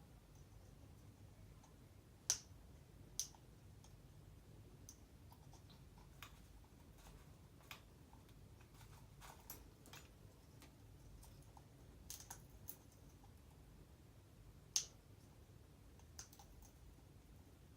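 African grey parrot making sharp single clicks at irregular intervals over a near-silent background, about a dozen in all; three stand out as much louder, about two seconds in, a second after that, and near fifteen seconds in.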